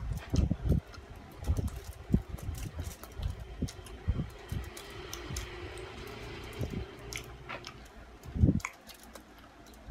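People eating at a table: irregular knocks, clicks and bumps of utensils and food being handled, with a heavier thump about eight and a half seconds in.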